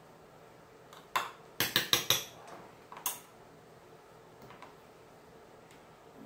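A metal spoon clinking and scraping against a casserole dish while buttered breadcrumb topping is spread and pressed down: a sharp tap about a second in, a quick run of clinks just after, another tap near the middle and a few faint ones later.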